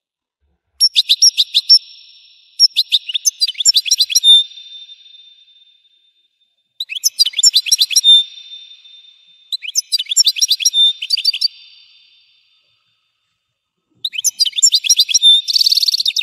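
European goldfinch singing: five bursts of rapid twittering chirps, each one to two seconds long, separated by short silent pauses.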